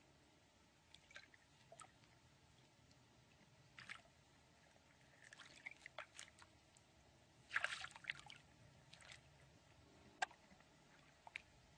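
Faint, scattered small water sounds: irregular splashes and drips, the loudest a short splash about two-thirds of the way through.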